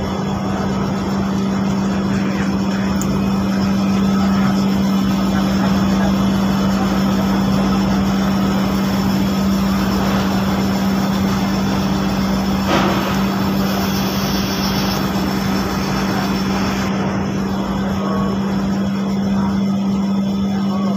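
Ferry engine running with a steady low drone over a constant rushing noise, and one short knock about thirteen seconds in.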